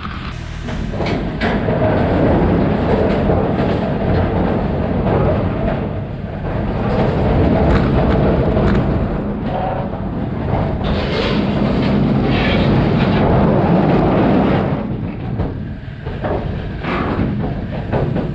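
Stripped car body dragged over a dirt and gravel yard on a cable: steady scraping and grinding of metal on the ground with many knocks and rattles, easing off briefly a few times, over the running of the towing off-road machine.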